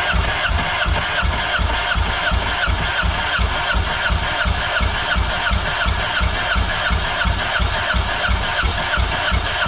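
Electric starter cranking a Yamaha jet boat's four-cylinder engine over with its spark plugs out for a compression test, in a steady, fast, even rhythm that never catches and runs.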